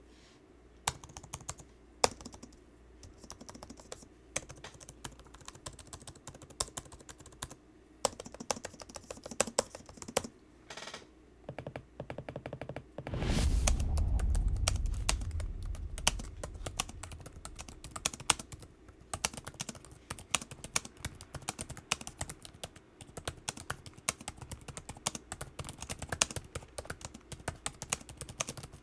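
Typing on laptop keyboards, the keys clicking in quick irregular runs: first the Dell XPS 17 9700's keyboard, then the Dell XPS 15 9570's. About halfway through, a loud low rumble swells up and fades over a few seconds.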